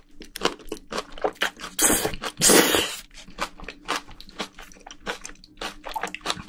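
Close-miked chewing of a big mouthful of spicy braised bean sprouts and seafood, with crisp, rapid crunching of the bean sprouts. Two longer, louder eating sounds come a little after two seconds in.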